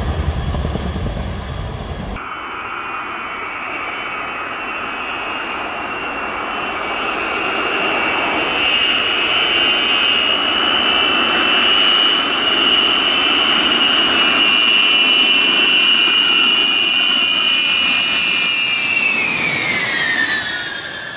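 For about two seconds, low rotor noise from twin-rotor Chinook helicopters flying past. Then, after a sudden cut, a Boeing B-52 bomber's eight jet engines on low landing approach: a steady high whine that grows louder, then drops in pitch as the aircraft passes overhead near the end.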